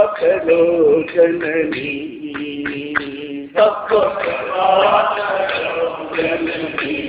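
A man singing a Hindu devotional bhajan in a slow, chant-like melody, gliding between notes and holding long ones.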